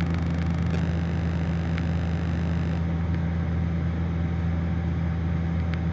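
Steady drone of a Piper Warrior's four-cylinder Lycoming O-320 engine and propeller in cruise flight, heard from inside the cockpit.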